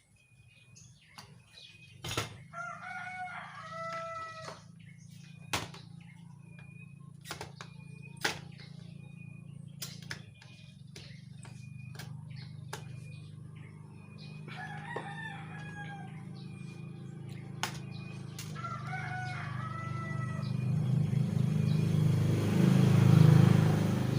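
A rooster crowing three times in the background, with sharp clicks scattered throughout and repeated short high chirps. A low hum grows louder toward the end and becomes the loudest sound.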